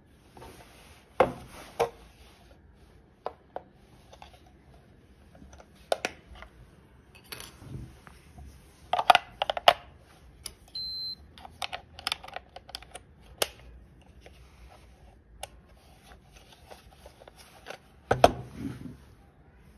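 Plastic clicks and knocks from handling a LEAP PQ9907S digital chess clock as a battery is fitted into its compartment, with one short high beep just after the busiest clicking about ten seconds in. Near the end comes a loud clack of the clock's rocker lever being pressed.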